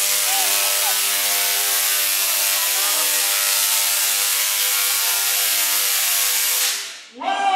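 A large Tesla coil firing, about 3.5 million volts throwing arcs through the air, giving a steady buzzing crackle with an even pitched hum. It cuts off suddenly near the end.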